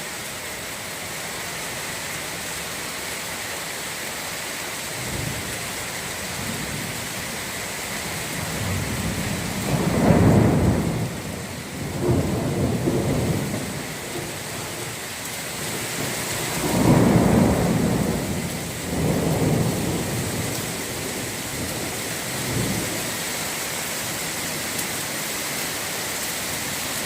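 Torrential rain falling steadily, with several low rolls of thunder in the middle, the loudest about ten and seventeen seconds in.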